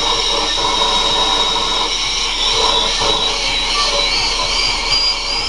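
Horizontal hydraulic-pneumatic rock drilling machine running as it drills into quarry rock: a loud, steady hiss with a high whine whose pitch creeps up near the end.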